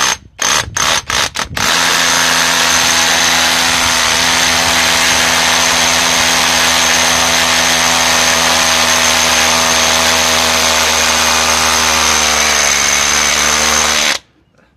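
Worx WX354 Slammer brushless cordless hammer drill boring into a hard concrete floor with an old masonry bit: a few short stabs on the trigger, then about twelve seconds of continuous drilling. Its pitch dips briefly near the end before it stops suddenly.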